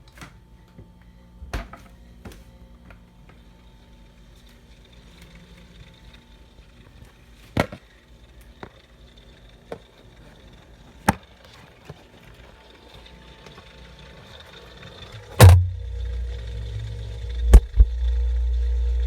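Scattered knocks and taps, then a loud thump about fifteen seconds in, after which a mini fridge hums steadily and low, with one more knock shortly before the hum grows stronger near the end.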